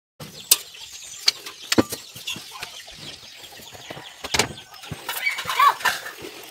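A few sharp clinks and knocks, and a chicken clucking a few times about five seconds in.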